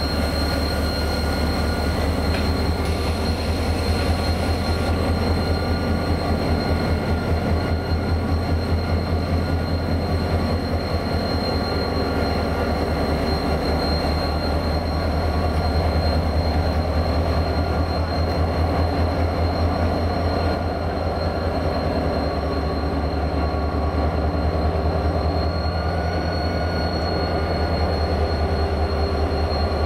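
Renfe class 333.3 diesel locomotive's engine running steadily, a deep, fast-pulsing rumble with a thin steady high whine above it.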